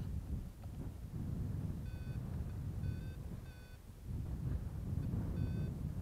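Wind buffeting the microphone, with four short high beeps from a paragliding variometer.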